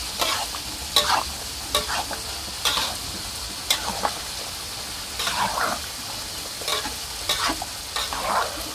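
Metal spatula stirring and scraping around a large aluminium wok of coconut-milk vegetable stew, with irregular strokes about once a second and sloshes of liquid, over a steady hiss.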